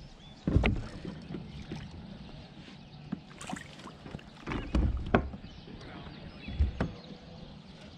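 A few sudden thumps and knocks on a fishing kayak as an angler sets the hook and fights a fish. The strongest comes about half a second in, with more around five seconds in and near seven seconds.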